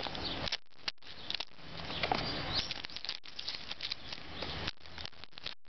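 Fingers picking at and peeling a paper seal label off a cardboard camera box: rustling and crackling of paper and cardboard with many small clicks.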